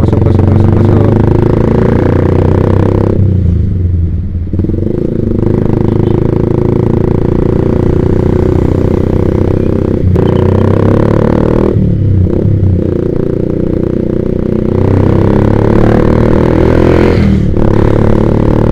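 Yamaha Vixion's single-cylinder engine running through a Proliner TR1 R racing exhaust while riding, its pitch rising as it pulls. The engine note drops off briefly three times, about three seconds in, near the middle and near the end, as the throttle is rolled off.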